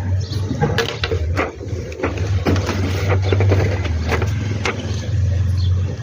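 Toy RC car running: a steady low motor hum with scattered clicks and scrapes.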